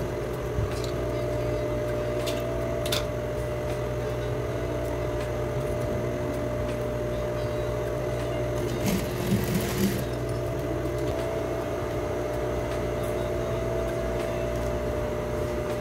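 Electric sewing machine running steadily as a seam is stitched, with a short noisy patch about nine seconds in.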